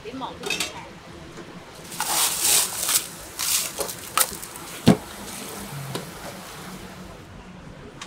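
Ice cubes rattling as they are scooped from a cooler with a plastic scoop and dropped into a plastic cup, followed by a few sharp clicks and knocks.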